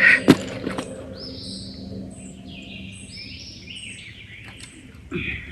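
A songbird singing a series of short, high notes, repeated over and over. A short sharp knock sounds right at the start.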